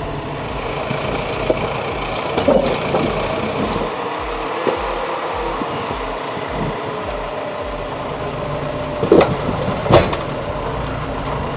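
Tractor engine running steadily while a forestry crane loader handles logs, with wooden knocks of logs striking each other, one about two and a half seconds in and two louder ones near the end.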